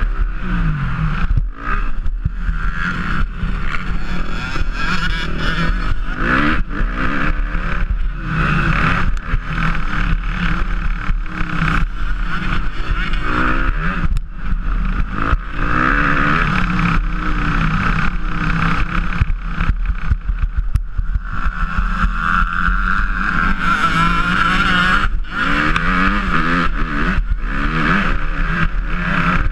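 Motocross bike engine heard from on the bike at race pace, its pitch rising and falling as the rider opens and closes the throttle and shifts gear, with wind noise and frequent knocks from the bumpy track.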